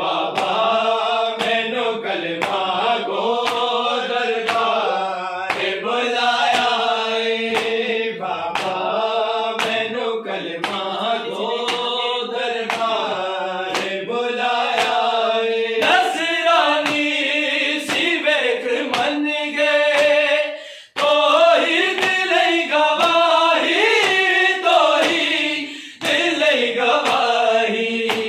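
A group of men chanting a Punjabi devotional recitation together, unaccompanied, with a steady beat of sharp hand strikes keeping time. The singing breaks off briefly about 21 seconds in and again about 26 seconds in.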